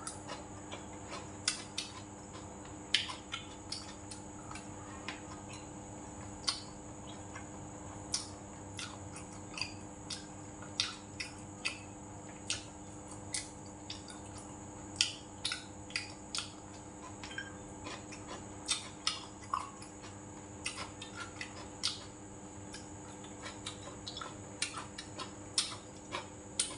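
Eating sounds: chopsticks and a metal spoon clicking and tapping irregularly against a stainless steel rice bowl and ceramic dishes, with chewing, over a steady faint hum.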